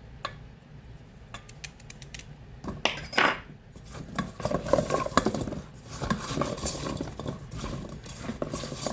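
Seasoned carrot and potato pieces being tossed with a rubber spatula, with irregular clattering, clicking and scraping against the dish, louder in a couple of stretches around the middle.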